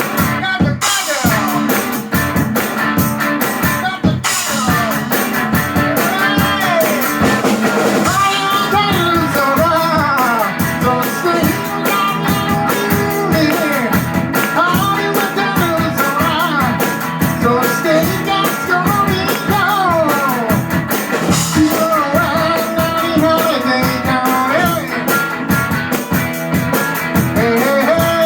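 Rock and roll band playing, with electric guitar and drum kit; the guitar bends and slides between notes over a steady drum beat, and the playing fills out about eight seconds in.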